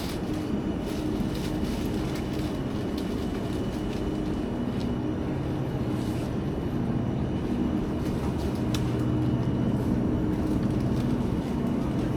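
Supermarket freezer cabinets running: a steady low mechanical hum with a few held low tones.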